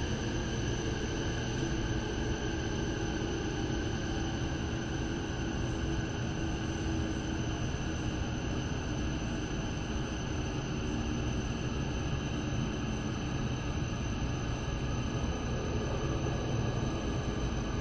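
Steady running noise of an E7 series Shinkansen heard inside the passenger car, an even low rumble with a faint steady whine over it, as the train runs along the station platform on arrival.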